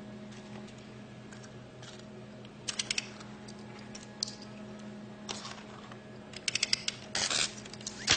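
Quick bursts of small mechanical clicks and ratchet-like ticking over a steady low electrical hum, with a short raspy scrape near the end, as of tools working on a robot's mechanism.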